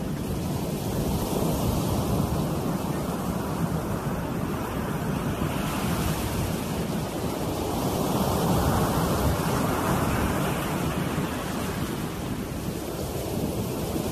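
Ocean surf breaking and washing up a sand beach, with wind buffeting the microphone. A wave breaks more loudly about eight seconds in.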